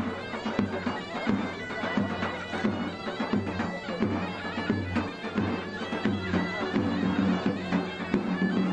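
Traditional folk dance music: a loud, reedy wind instrument plays a held melody over a drone, with a steady drum beat under it.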